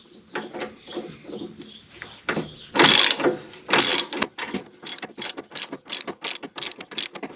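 Ratchet wrench with a 15 mm socket loosening a mower deck bolt, the pawl clicking as the handle is swung back. There are two louder clacks near the middle, then a quick, even run of about five clicks a second. The bolt is not very tight.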